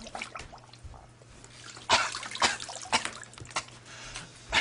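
Water splashing and dripping, uneven, with sharper splashes about two seconds in and again near the end, over a low steady hum.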